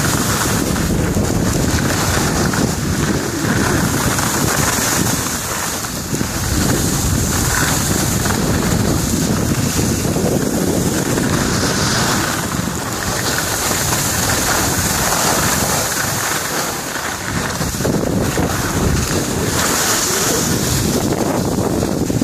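Steady wind rush on the microphone of a camera carried by a skier going downhill, mixed with the hiss of skis running over snow.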